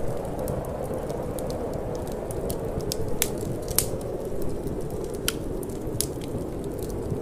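Wood fire crackling in a fireplace, with irregular sharp pops and snaps, a few louder ones in the middle, over a steady low rush of wind.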